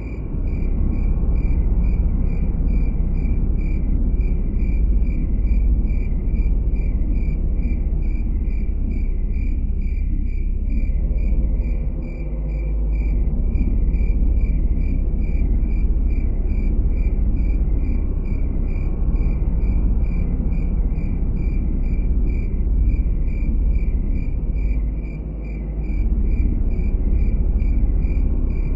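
Crickets chirping steadily, about two to three chirps a second, over a continuous low rumble.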